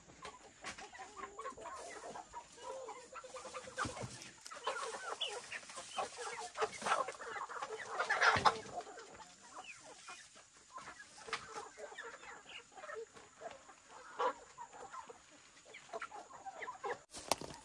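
A flock of free-range chickens clucking, hens and roosters calling in short, scattered bursts, the loudest about eight seconds in.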